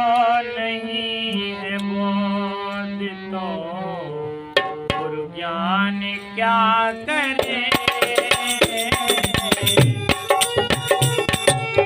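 Devotional bhajan: a man sings a slow, drawn-out opening line over a harmonium drone, with only a stray stroke on the dholak. About seven seconds in, the hand-played dholak comes in with a fast, steady beat under the harmonium.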